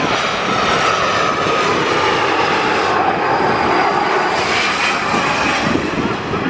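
An arriving jet airliner's engines passing close by on approach: a loud, steady rushing noise, with a whine that slowly falls in pitch as it goes past.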